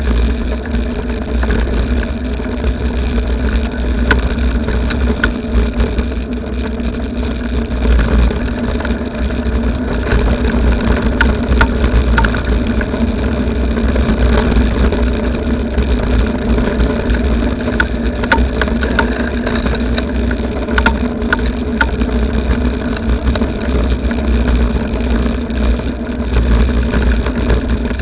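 Motor vehicle engine running steadily with a low rumble, with a few scattered sharp clicks or knocks partway through.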